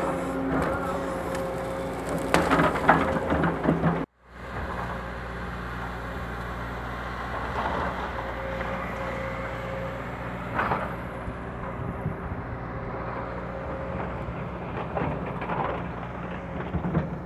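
Sumitomo crawler excavator's diesel engine running steadily as it clears scrub, with sharp cracks and snaps of brush and wood in the first few seconds, loudest about three seconds in. The sound cuts out for a moment about four seconds in, then the engine runs on evenly with a few scattered knocks.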